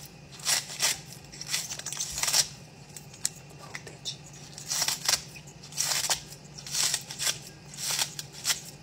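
Kitchen scissors snipping through a bunch of green onions, a dozen or so short crisp snips in uneven clusters with brief pauses between.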